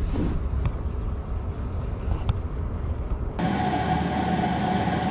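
Wind rumbling on the microphone, with a few faint handling clicks. About three seconds in, an abrupt cut brings in a steady droning hum with a clear pitch.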